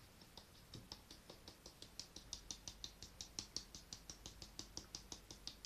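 Flour being sifted through a hand sieve: a faint, quick rhythmic rasping of about six or seven strokes a second, a little louder after the first couple of seconds.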